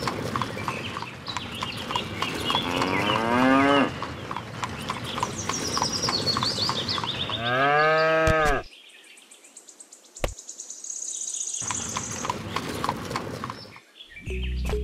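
Cattle mooing: two long, low moos about four seconds apart. Between them are high bird-like chirps and scattered sharp clicks.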